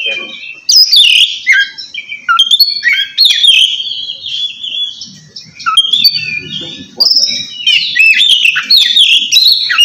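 Oriental magpie-robin singing loudly in the 'ngeplong' style: a rapid run of varied clear whistles with quick up- and down-sweeping notes, thinning briefly about halfway through before picking up again.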